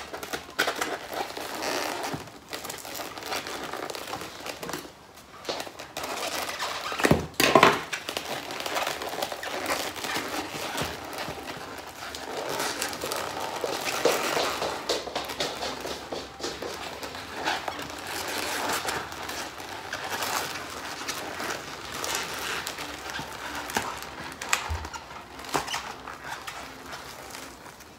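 Takeaway food packaging being handled and opened: continuous crinkling and crackling with small clicks, and a louder crackle about seven seconds in.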